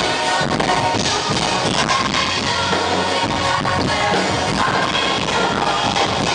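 Live pop-rock band playing loud, with the drum kit driving the beat.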